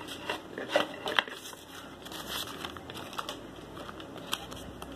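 Hands handling craft-foam petals on a foam flower: light rustling with scattered small clicks and taps.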